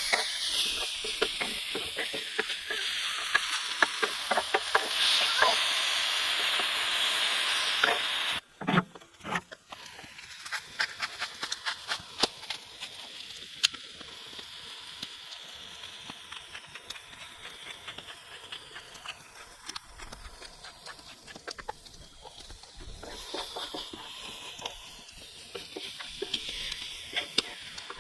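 Food sizzling on a propane griddle, a steady hiss with sharp clicks and taps of a utensil. It cuts off abruptly about eight seconds in, and a quieter sizzle with frequent clicks follows.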